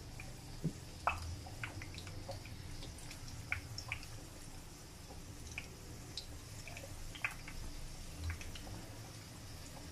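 Pakora batter frying in hot oil in a kadai: a faint, steady sizzle with scattered small pops and crackles.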